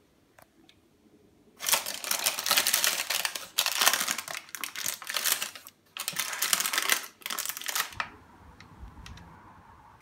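Baking parchment crinkling and rustling as it is handled around a freshly baked loaf, a dense crackle in several bursts with short breaks, stopping about eight seconds in.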